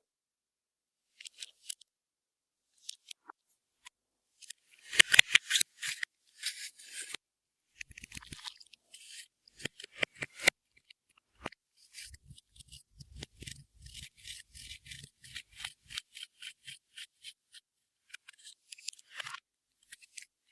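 Hands working slime-making materials (clear slime with makeup, glitter and beads mixed in), making irregular crisp clicks and crackles in short clusters, with a quicker run of clicks near the middle.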